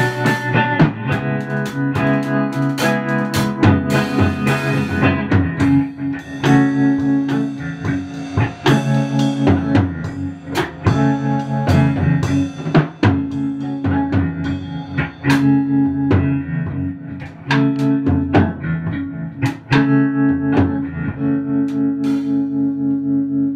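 Electric guitar, a Fender Stratocaster through a Fender Princeton Reverb amp, jamming with a drum kit. Near the end the drums stop and a guitar chord is left ringing.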